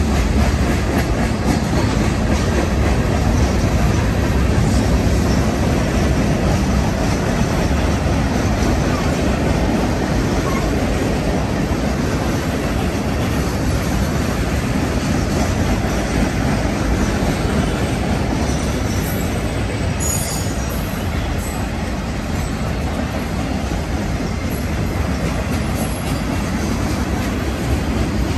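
Freight cars of a loaded train rolling past at close range: a steady rumble of steel wheels on rail, with a brief high wheel squeal about two-thirds of the way through.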